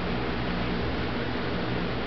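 Steady hiss with a faint low hum: background room noise.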